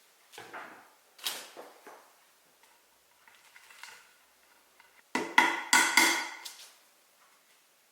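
Woodworking hand-tool work: light knocks and taps on wood, then, about five seconds in, a quick run of about six sharp strikes with a ringing tone.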